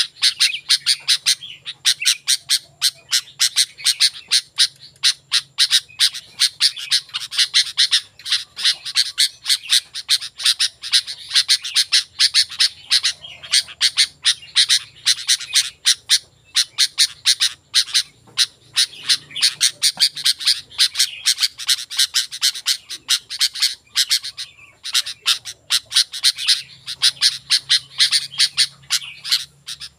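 Sooty-headed bulbul (kutilang) singing continuously in a rapid run of short, chattering notes.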